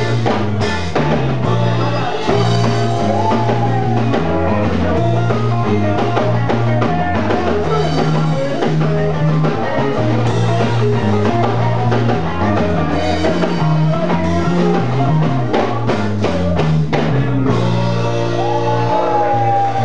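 Live blues-rock band playing: electric guitar, bass guitar and drum kit with a singer. About three quarters through, the drumming stops and a chord rings on.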